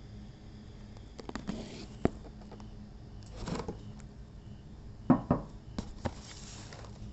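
Handling noise: soft rustles and several light knocks, the loudest a close pair about five seconds in, over a low steady hum.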